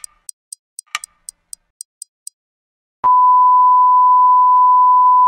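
Clock ticking sound effect, about four light ticks a second with a stronger tick on each second, stopping a little after two seconds in. About three seconds in, a loud steady high beep starts suddenly: the test tone that goes with TV colour bars.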